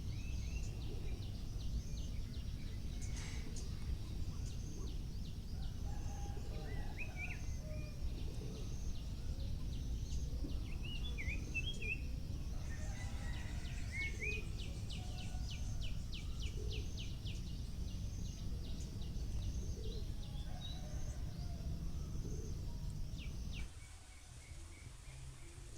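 Birds chirping and calling over a steady low outdoor rumble, with a fast repeated trill in the middle. Near the end the low rumble drops away suddenly and everything gets quieter.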